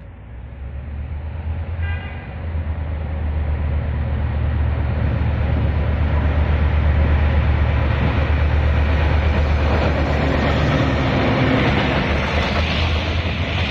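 Diesel-electric locomotive R155 hauling a freight train as it approaches and passes, its engine's low drone growing louder. In the second half the rolling noise of wheels on the rails from the following freight wagons rises.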